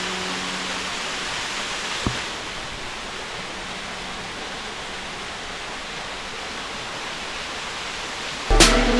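Waterfall: a steady, even rush of falling water, with a single sharp click about two seconds in. Loud music cuts in near the end.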